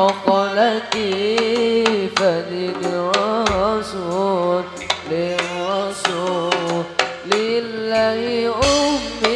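Al-Banjari sholawat: a solo male voice sings with wavering, ornamented runs, amplified through a microphone, over frame drums struck in a quick steady rhythm. Deep bass drum strokes come twice, about a third of the way in and near the end.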